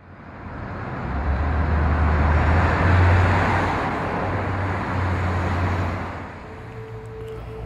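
A rushing, traffic-like rumble over a low steady hum fades up from silence, peaks about three seconds in and dies away; a faint steady higher tone comes in near the end.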